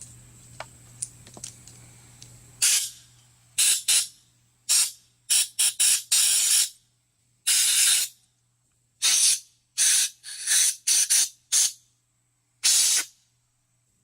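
Compressed air from an air-hose blow gun blasting through carburetor passages and jets to clear out old deposits: about a dozen short, sharp hisses of varying length, starting a few seconds in. Before them, a few small clicks over a faint hum.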